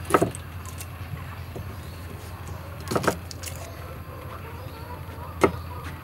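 Three sharp knocks, roughly two and a half seconds apart, over a steady low hum.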